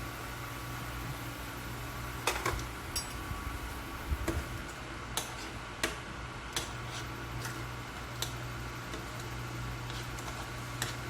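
A pan of sauce simmering on the stove: scattered light ticks and clicks, roughly one every second or so, over a steady low hum.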